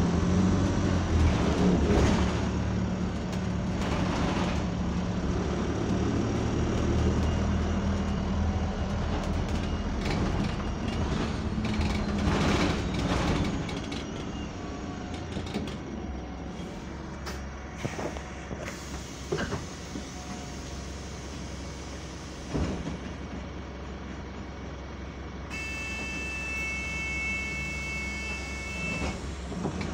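Double-decker bus engine drone heard from inside the upper deck, louder in the first half and quieter from about halfway, with loose interior fittings rattling and knocking. Near the end a steady high electronic tone sounds for about three seconds.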